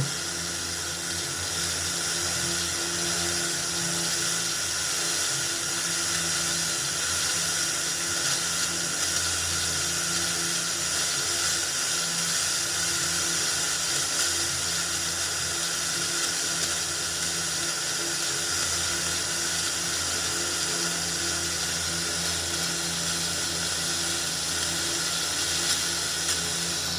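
FM radio static: a Philips radio-cassette recorder's FM section giving a steady hiss through a substitute speaker, with a low hum underneath. It is tuned between stations, so no station is coming in.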